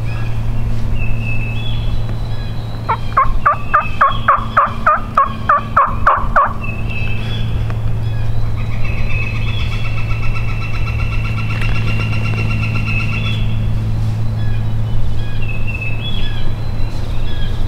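Wild turkey calling: a quick run of about a dozen yelping notes a few seconds in, over a steady low hum.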